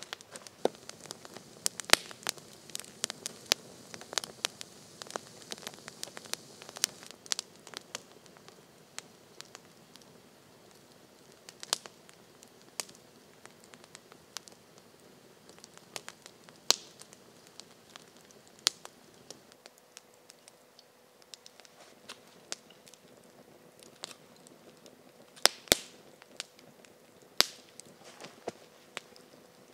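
Wood campfire crackling and popping, with irregular sharp snaps, busiest in the first half.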